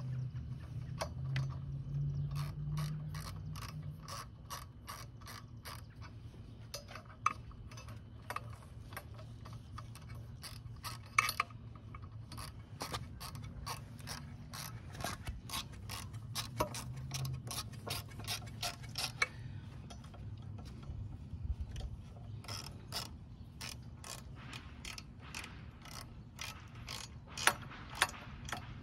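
Socket ratchet clicking in quick runs as it is swung back and forth, tightening the exhaust header-pipe flange nuts on a Honda CRF110F cylinder head. There is a short lull about two-thirds of the way through.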